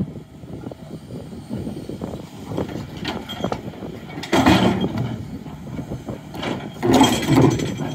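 Tracked hydraulic excavator at work, its engine running while the steel bucket works against boulders, with two louder stretches of engine and rock noise about halfway through and near the end.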